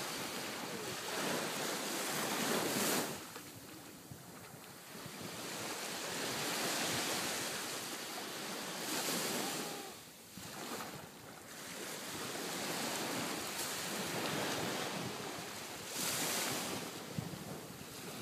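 Small sea waves breaking and washing up a sandy shore, the surf swelling and fading every few seconds, with wind buffeting the microphone.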